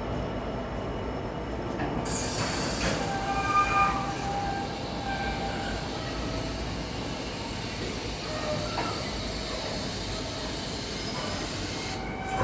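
Freight train's wagons rolling past on the rails behind a GBRf Class 66 locomotive: a steady rumble with a high hiss that comes in about two seconds in and stops sharply near the end, and several brief high wheel squeals.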